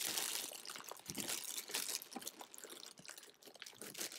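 Clear plastic bags crinkling and rustling as wrapped resin statue pieces are handled, loudest in the first second, then softer irregular crackles.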